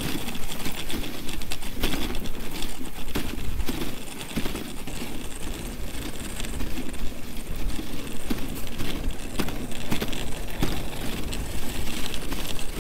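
Dog sled running along an icy, packed snow trail: the runners scrape and hiss over the snow, with frequent sharp clicks and knocks from the sled rattling over the bumps.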